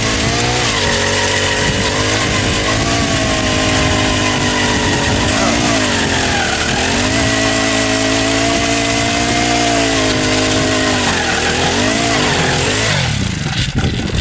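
Gas-powered ice auger's small engine running hard as it drills through lake ice, its pitch dipping and recovering several times as the bit bogs under load. Near the end the engine is throttled down and the steady note breaks up.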